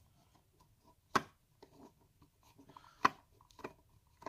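Thin screwdriver turning the battery-cover screw in the plastic underside of a bathroom scale: faint scraping with a few sharp clicks, the loudest about a second in and about three seconds in.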